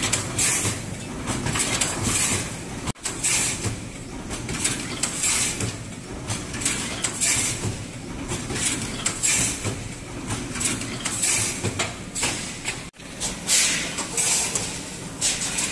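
CNC wire mesh resistance welding machine running through its weld cycles: a steady machine hum with a short hissing clatter repeating about once a second.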